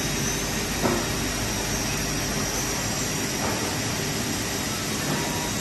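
Holztek CNC panel saw running: a steady machine whir, with a short faint knock about a second in.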